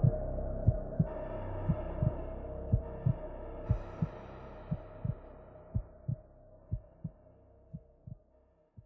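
Closing soundtrack: a heartbeat-like pulse of paired low thuds, about one pair a second, under a held drone. It fades out steadily to silence by the end.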